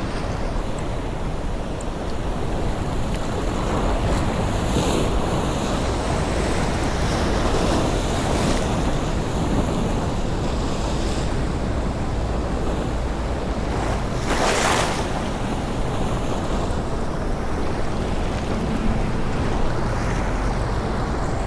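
Sea waves washing against the rocks, mixed with wind buffeting the microphone; a louder wave wash about two-thirds of the way through.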